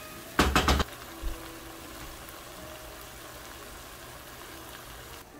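A quick run of about four sharp knocks about half a second in, then a low steady hiss from the gilbaka fish curry cooking in its frying pan on the gas stove.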